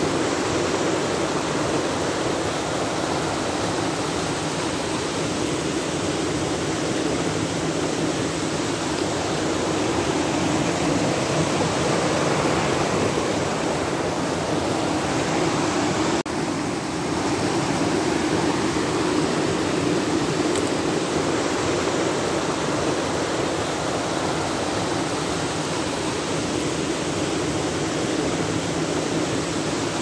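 Shallow stream rushing over stones and a small step in its concrete channel: a steady rush of water, with a brief dip about halfway through.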